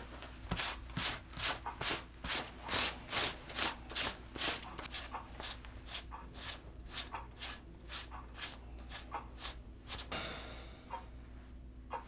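A handheld lint roller rubbed back and forth in quick strokes, about three a second, then a brief hiss near the end.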